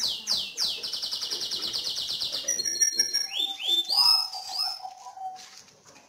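Caged songbirds singing: a fast, rolling trill for about two and a half seconds, then shorter whistled and sweeping notes that fade near the end.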